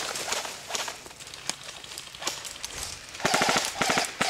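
Airsoft guns firing: scattered single shots, then two rapid bursts of fire about three seconds in.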